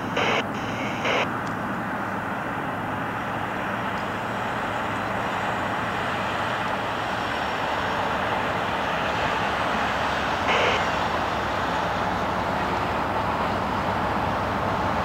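Diesel-electric freight locomotive approaching, its engine drone slowly growing louder. Three short, higher-pitched bursts stand out: two in the first second or so and one about ten and a half seconds in.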